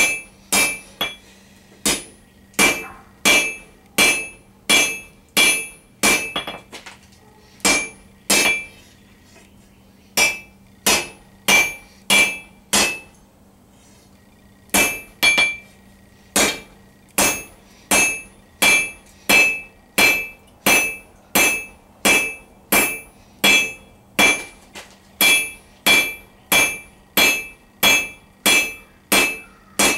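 Peen hammer striking a hot round steel bar on an anvil, fullering it down to a thinner spot in the middle. Steady blows about three every two seconds, each with a bright metallic ring, with two short pauses.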